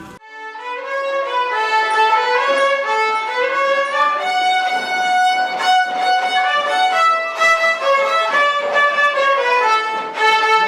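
A violin playing a melody, one note line moving in steps, coming in suddenly near the start.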